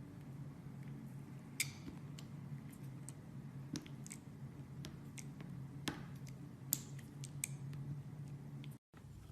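Knife cutting into a bar of soap: scattered crisp clicks and crackles, a few of them sharper, over a steady low hum. The sound drops out for an instant near the end.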